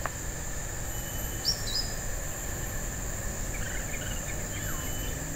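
Outdoor ambience of insects droning steadily on a high pitch, with a short bird chirp about one and a half seconds in and a few faint chirps later.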